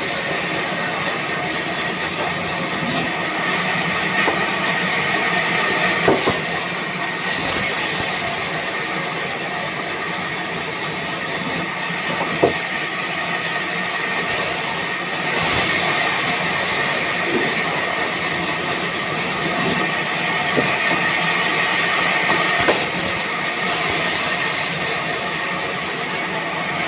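Band sawmill running and cutting through wood, a steady mechanical noise with a thin, constant whine. The high hiss drops away for a few seconds three times, about every eight seconds.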